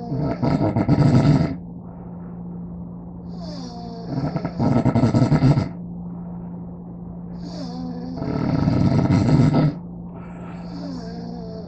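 A sleeping person snoring loudly: three rasping snores about four seconds apart, with quieter breathing between. A steady low hum runs underneath.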